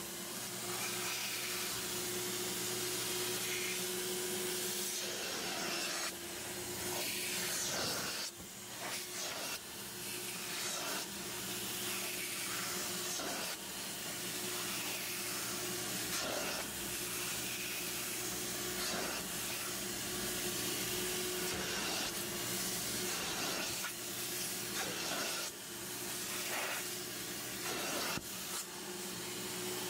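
Aqua Pro Vac carpet extractor running: a steady motor hum under a rushing hiss as its clear upholstery wand sprays and sucks solution from a cloth car seat in slow strokes. The hiss dips briefly a few times between strokes.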